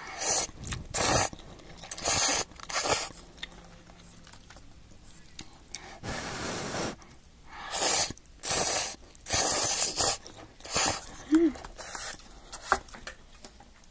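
Cup noodles being slurped from chopsticks in a series of short, loud sucking slurps, about a dozen, with one longer, softer one about six seconds in.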